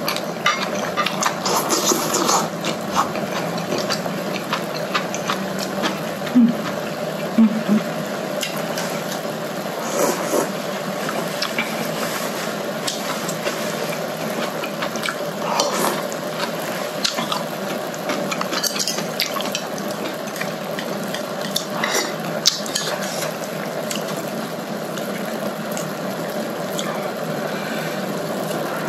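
Eating sounds from a hotpot meal: scattered clinks of chopsticks against a glass dish and the pot, with slurping and chewing, over a steady background hum.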